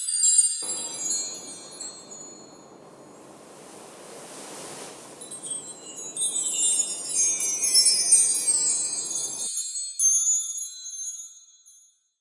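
Many overlapping high, tinkling chime tones, thinning out for a few seconds and then returning, over a low, even rush from about half a second in until about nine seconds. It fades out and stops near the end.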